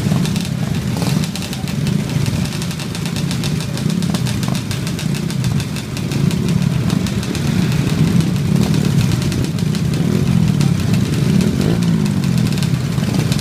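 A crowd of minibikes' small single-cylinder engines running together at idle, a steady mixed engine drone, with pitch rising and falling as some riders blip their throttles, most clearly near the end.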